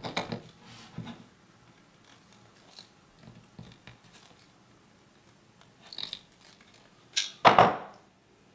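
Hand crimping pliers squeezing flat spade connectors onto thin wire leads: small clicks of handling, then two loud sharp squeezes near the end as the connector crimps.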